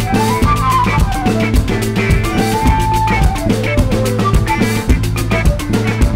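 Instrumental background music: drums keeping a steady beat under a bass line and a stepping melody.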